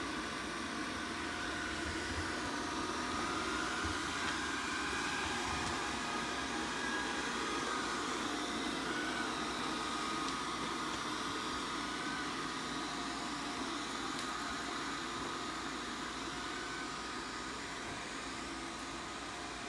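ZOOZEE Z70 robot vacuum running a mopping cycle: a steady whir of its suction fan and drive, with a faint whine that wavers slightly in pitch.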